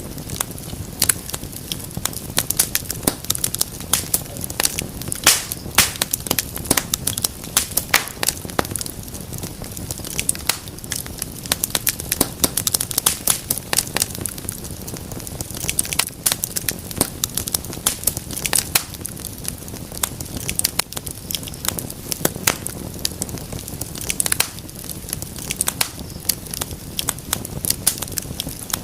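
Wood fire crackling in a fireplace: many irregular sharp crackles and pops over a low steady rumble.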